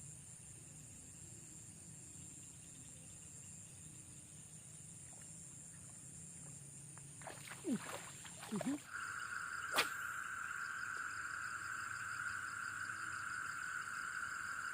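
Insects trilling steadily at a high pitch, joined about halfway through by a second, lower steady insect drone. A few quick falling sweeps and one sharp click come just before the lower drone starts.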